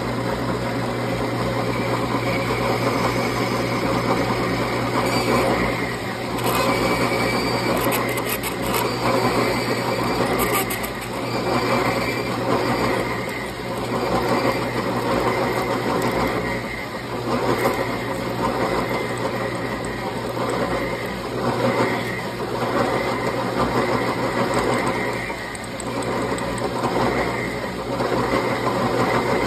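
A metal lathe running under a steady motor hum while two offset parting tools plunge into the spinning bar stock, cutting off a bushing. The cutting noise swells and fades every couple of seconds.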